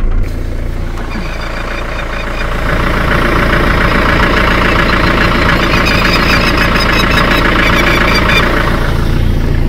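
Campervan engine running with a steady low hum. A rougher, noisier layer joins from about two and a half seconds in and drops away near the end.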